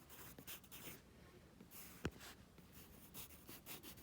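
Faint scratching pen strokes as a wiring diagram is drawn, in short irregular strokes, with one sharp click about two seconds in.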